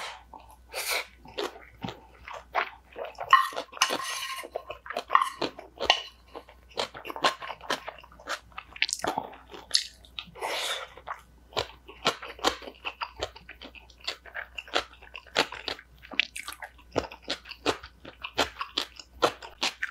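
Close-miked chewing and crunching of a mouthful of cucumber bibimbap: crisp bites into raw cucumber salad and pickled cucumber, with many short wet mouth clicks throughout.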